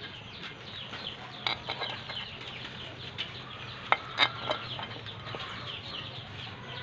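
Chickens clucking, with a few sharp clicks about a second and a half in and around four seconds in, over a faint steady low hum.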